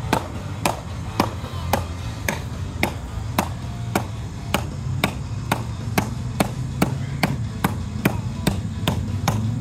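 Hatchet chopping into a thin wooden branch lying on the ground, a steady run of sharp strikes about two a second that quicken slightly toward the end.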